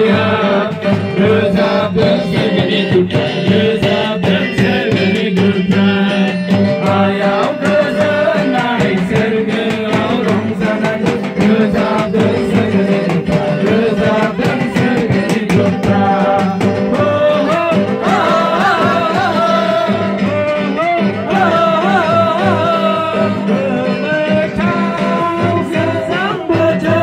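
Loud music with singing over a steady drum beat.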